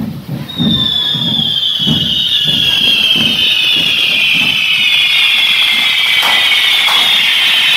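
Hand-held correfoc fireworks (carretilles on the devils' poles) spraying sparks with a loud, shrill, sustained hiss-whistle that starts about half a second in and slides slowly lower in pitch. A low beat comes about twice a second in the first few seconds, and a few sharp cracks come near the end.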